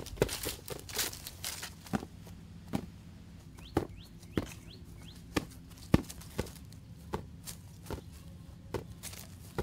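An inflatable beach ball being batted up with bare hands, a sharp slap at each hit, repeated at an uneven pace of roughly one to two hits a second.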